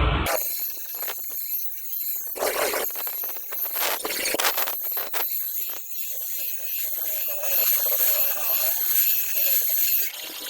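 Steel being ground and scraped while a cleaver blade is sharpened, in uneven strokes over a steady high hiss.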